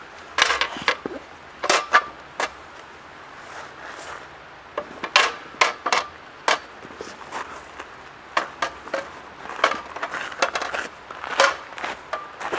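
Irregular knocks, clinks and clatter of camp cooking gear and firewood being handled, some strikes ringing briefly like metal.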